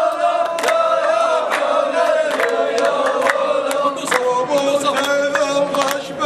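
A man chanting a drawn-out shaila melody in Gulf Arabic style, doubled into a layered, choir-like echo. Sharp clicks are scattered through it.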